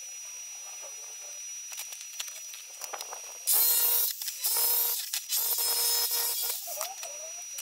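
A small power tool run in three short bursts, each starting with a quick spin-up and running with a steady whine and hiss, after a few seconds of light handling ticks.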